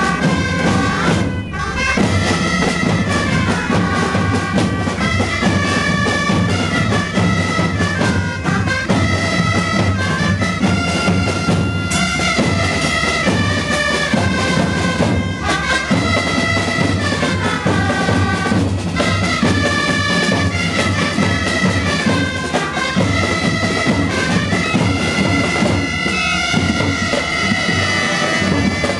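Several gralles, Catalan double-reed shawms, play a bright, nasal dance tune together, with a drum beating along.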